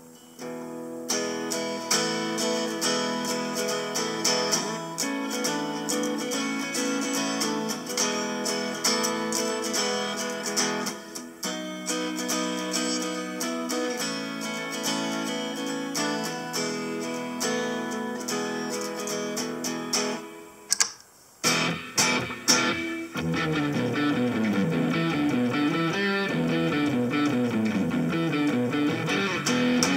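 Electric guitar played through Harley Benton DNAfx GiT multi-effects presets. Strummed, sustained chords run for about twenty seconds, then after a brief break a different patch comes in with picked single-note runs.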